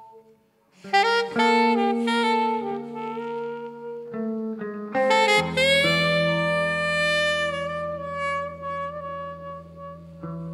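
Slow jazz ensemble music. After a brief pause, saxophone and other instruments come in about a second in with long held notes. A fuller chord over a low held bass note enters around five seconds in.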